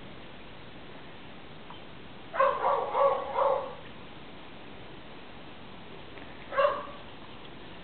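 Dog barking: a quick run of three barks, then one more bark a few seconds later.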